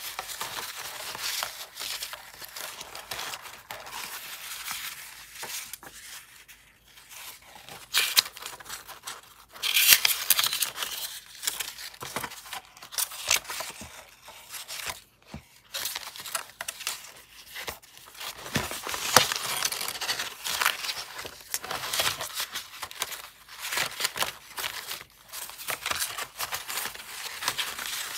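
Scraps of paper rustling and crinkling as hands sort and lift them one by one, in irregular bursts with a louder rustle about ten seconds in.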